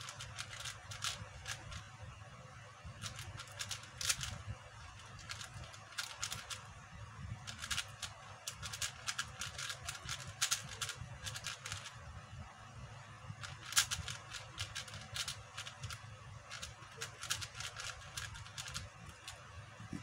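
QiYi 4x4 speedcube being turned fast by hand: the plastic layers click and clack in rapid bursts, with short pauses between them.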